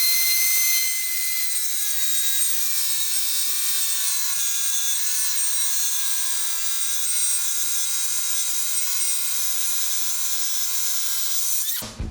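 CNC milling machine spindle cutting, a steady high whine made of several tones that waver slightly in pitch. Guitar music comes in at the very end.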